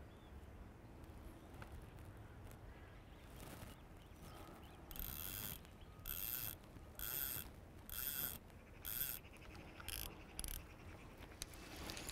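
Fixed-spool carp reel ratcheting in short bursts, about eight of them a little under a second apart, starting about five seconds in, as the handle is wound a few turns at a time against a hooked carp that is stuck in weed.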